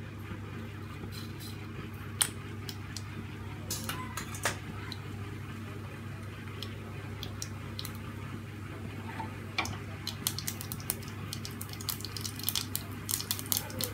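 Mustard seeds in hot oil in a frying pan, starting to crackle and pop: a few scattered pops at first, then rapid popping and spluttering in the last few seconds as the seeds begin to burst, the sign that the oil is hot enough for the tempering. A steady low hum runs underneath.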